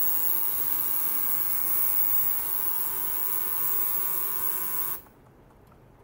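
Benchtop ultrasonic cleaning bath running: a loud, steady, high-pitched buzzing hiss from the tank that cuts off suddenly about five seconds in.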